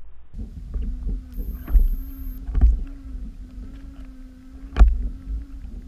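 Muffled underwater audio: a low water rumble with a steady low hum and several dull knocks, the loudest near the end.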